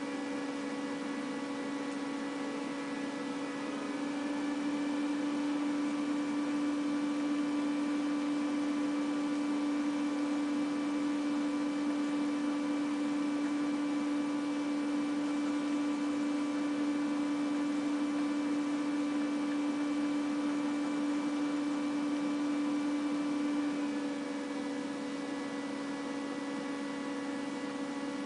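A steady electrical hum: one strong low tone with fainter higher tones over a light hiss, a little louder from about four seconds in until near the end.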